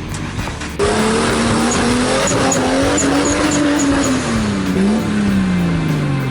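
Off-road 4x4's engine revving under load, its pitch rising and falling, then sinking low near the end. It jumps suddenly louder about a second in.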